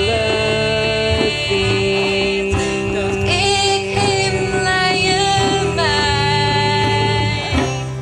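A song: long held notes sung or played over backing music, with a few upward swoops in pitch, dropping in level near the end.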